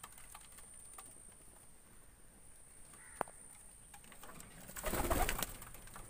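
Domestic pigeons cooing softly in a loft, with a louder, closer burst of sound about five seconds in and a single short tap a couple of seconds before it.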